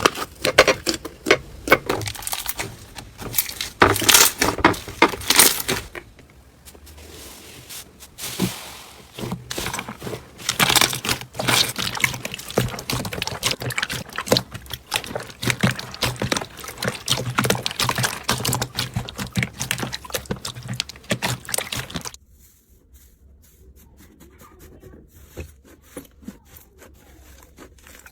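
Slime being squeezed, poked and stretched by hand, giving dense runs of sticky clicks and pops. It goes quieter for a few seconds about six seconds in, then drops suddenly near the end to a much softer, sparser squishing.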